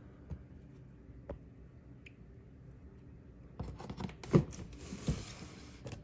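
A few faint clicks, then a cluster of knocks and rustling from handling, the loudest knock about four and a half seconds in.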